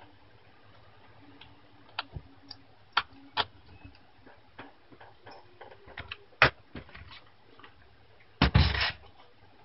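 Fujitsu Lifebook A544's plastic screen bezel giving a series of scattered sharp clicks as it is pressed into place along its bottom edge, then a louder clatter near the end as the laptop is swung round on the desk.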